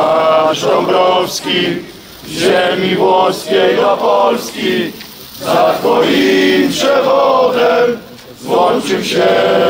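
A crowd of mostly male voices chanting in unison, a slogan repeated about every three seconds with a short break between repeats.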